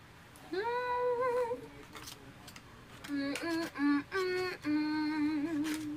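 A woman humming a short tune in delight while she eats, her mouth full of food. A rising note held with a wobble starts about half a second in, then a run of short notes from about three seconds in ends on a held, wavering note.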